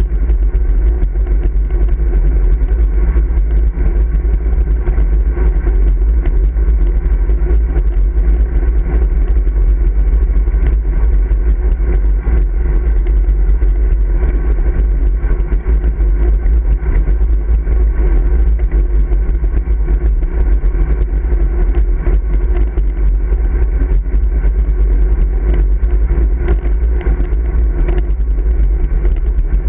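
Steady, loud low rumble of wind and road vibration on a camera mounted on the handlebars of a moving road bike.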